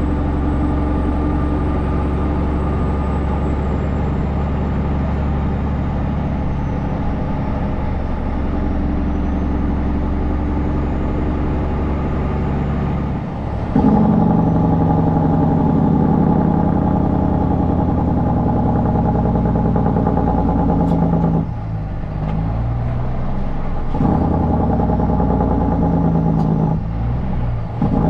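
Kenworth C500 truck's diesel engine running under load. It grows louder about halfway through, then drops off briefly twice near the end before picking up again.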